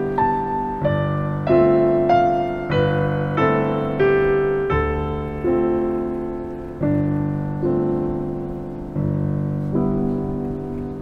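Background piano music: a slow melody over chords, each note struck and left to fade before the next.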